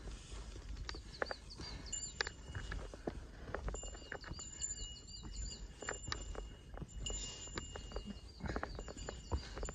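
Footsteps of a hiker on a rocky mountain trail, with many short knocks and crunches. A small bird sings a quick run of repeated wavy notes three times, and thin steady high tones come and go.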